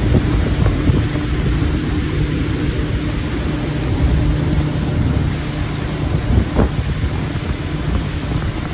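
Wind buffeting the microphone over the steady hum of a boat's motor running.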